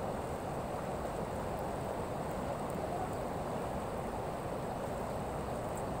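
River water flowing over a stony bed: a steady, even rushing.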